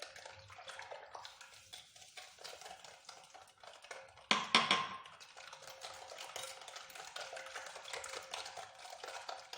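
A utensil stirring eggs and sugar in a bowl by hand: a steady run of quick, light clicks against the bowl, with one louder clatter about four and a half seconds in.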